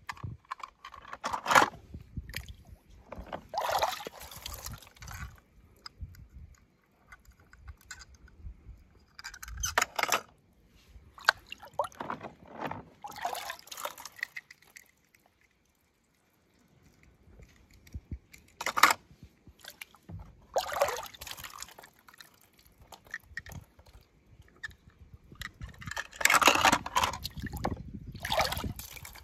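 Water splashing and sloshing in irregular bursts as a hand dips small die-cast toy cars into water and lifts them out dripping, with short quiet gaps between the bursts.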